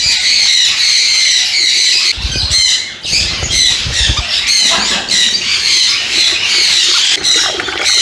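A flock of aviary parrots squawking and calling all at once, a constant high-pitched din. There are brief low rumbles about two to four seconds in.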